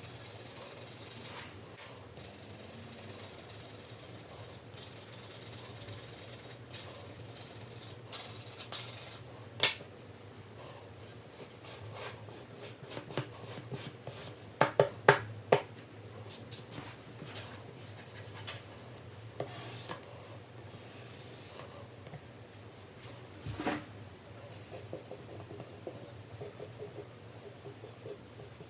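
4B pencil shading on paper: graphite rubbing in steady back-and-forth strokes, with scattered sharp ticks from about ten seconds in.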